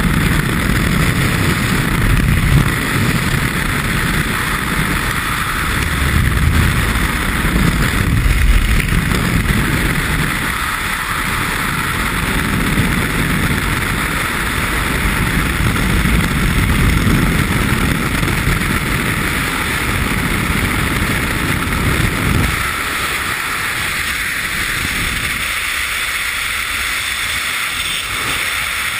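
Freefall wind rushing over a helmet-mounted camera, with heavy low buffeting that surges and eases. About 22 seconds in the low buffeting drops away, leaving a lighter, steady rush.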